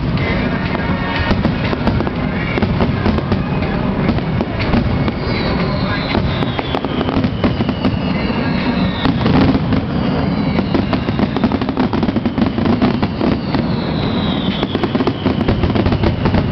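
Aerial fireworks display: a continuous run of rapid bangs and crackling bursts, with several falling whistles from about five seconds in.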